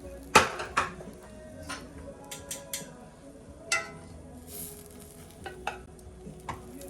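A metal utensil clicking and knocking against a frying pan several times, the loudest near the start, over a faint sizzle of buttered brioche bun toasting in the pan.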